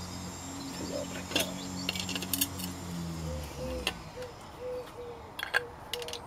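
Light metal clicks and clinks of hand tools and parts during work on a car's fuel filter bracket. Under them a steady low hum drops in pitch and dies away a little past halfway, and from about halfway a short note repeats about two or three times a second.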